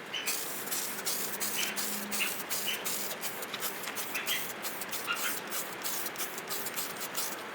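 A rag wet with paint thinner wiping over the sanded metal of an old washing-machine tub: a quick run of rubbing strokes with the odd faint squeak.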